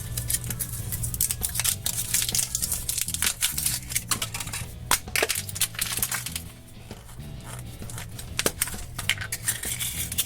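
Foil wrapper crinkling and plastic clicking as a chocolate surprise egg is unwrapped, cracked and its toy capsule opened: many quick irregular crackles and clicks, over steady background music.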